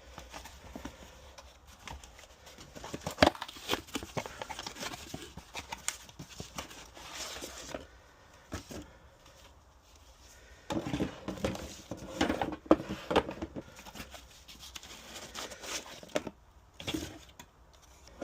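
Irregular knocks, clicks and scraping of hardware being handled, in two busy spells with a few louder sharp knocks.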